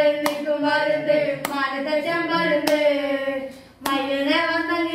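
Boys singing a slow melody in long held notes, with a single hand clap about every 1.2 seconds keeping time, four claps in all.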